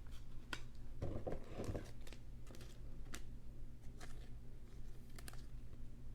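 Trading cards being handled and slipped into plastic card sleeves: scattered light clicks and taps with short plastic rustles.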